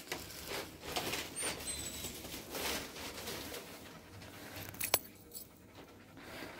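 Faint sounds of a Labrador moving about: soft panting breaths and a light metallic jingle from her harness fittings, with one sharp click about five seconds in.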